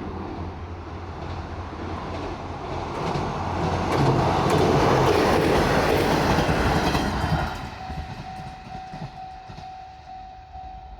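Diesel multiple-unit train passing over a level crossing, engine and wheels on rail joints building to their loudest about four seconds in, then fading away. As it goes, the crossing's warning bell rings in even strokes and stops near the end.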